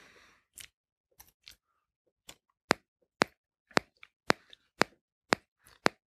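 Waving lucky-cat figurine ticking: sharp, evenly spaced clicks about twice a second, with a few fainter irregular ones before them.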